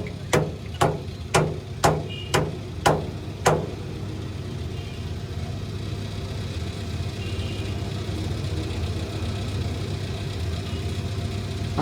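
Truck engine idling steadily, with a run of seven sharp clicks, about two a second, in the first few seconds.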